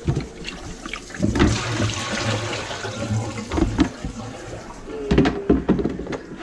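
Dirty water poured from a plastic tub into a stainless steel kitchen sink, rushing and splashing for a few seconds, followed by a few sharp knocks about five seconds in.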